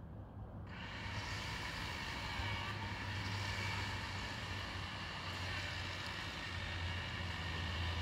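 Chainsaw picks up speed about a second in, then runs steadily at high speed while cutting into a tree.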